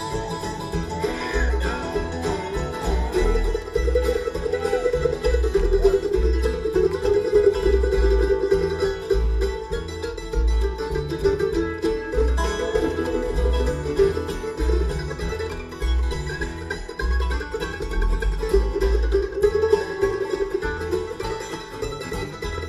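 Instrumental bluegrass music: plucked strings over a steady bass beat.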